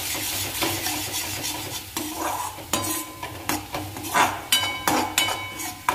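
Masala paste of tomato, onion, garlic and ginger sizzling in oil in a metal kadai while a perforated metal spoon scrapes and stirs it, about two strokes a second, with a few brief metallic rings from the pan. The paste is being roasted to the stage where the oil starts to separate.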